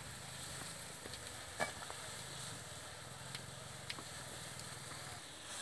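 Pot of water boiling hard over a wood fire, a steady bubbling hiss. A few short sharp clicks come over it, the loudest about a second and a half in.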